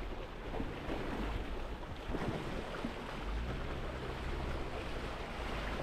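Jeep driving off-road: a steady low rumble under rough noise, with wind buffeting the camera microphone.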